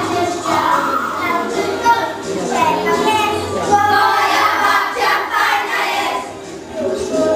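A group of young children singing a song together over backing music, with a brief lull about six seconds in.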